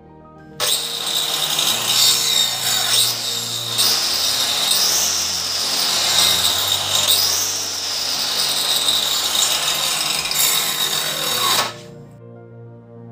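Planet Power EC4 4-inch (110 mm) electric cutter machine with a diamond marble-cutting blade, run against a wooden plank: a high steady motor whine over a harsh rushing noise, starting abruptly and cutting off near the end. Its pitch dips and recovers twice around the middle.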